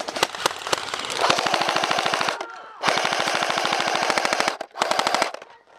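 A&K M249 SAW airsoft electric gun firing full-auto in three bursts: about a second long, then nearly two seconds, then a short one near the end. A few scattered single shots come before the first burst.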